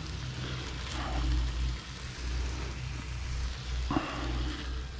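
Steak and chicken pieces sizzling in a frying pan, a steady hiss over a low steady hum. One short knock comes about four seconds in.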